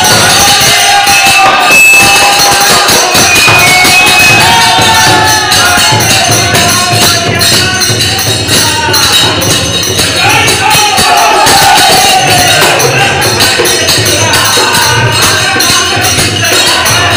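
Men singing a folk song together in rough unison, with small brass hand cymbals (manjira) clashing in a fast steady beat and a hand drum thumping underneath.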